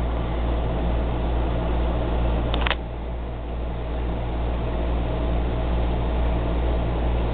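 Steady low hum and hiss, with a single click about two and a half seconds in.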